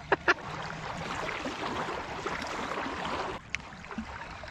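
A baitcasting reel during a cast. Two sharp clicks come near the start, then the spool whirs for about three seconds as line pays out. The whir stops suddenly, followed by a single click.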